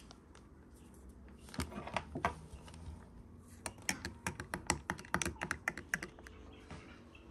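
Metal spoon stirring in a cut-glass tumbler of water, clinking against the glass: a few taps about two seconds in, then a quick, even run of about six clinks a second for some two and a half seconds.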